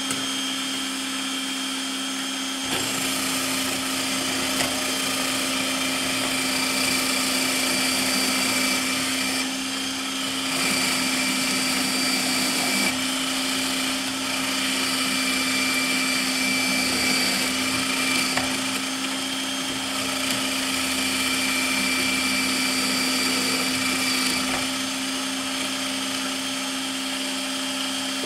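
Bosch MFW3640A electric meat mincer running: a steady motor hum that turns louder and rougher about three seconds in, eases briefly twice mid-way, and settles back to the plain hum near the end.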